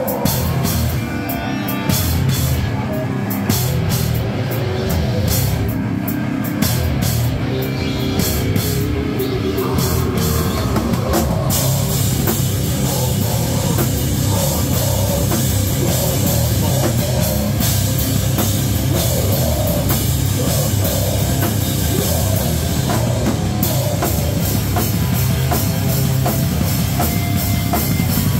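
Live rock band playing: drum kit and electric guitars. Separate drum hits stand out at first, and about eleven seconds in the sound fills out, dense and loud with cymbals and guitars.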